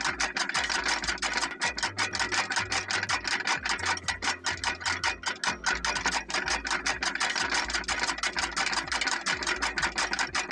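Miniature chaff cutter driven by a small DC motor, its flywheel blades chopping grass as it is fed in, a fast even clatter of about eight clicks a second over the motor's hum.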